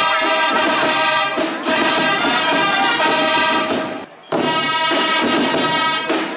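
Brass band playing a fanfare-like piece with sustained chords, breaking off briefly about four seconds in before starting again.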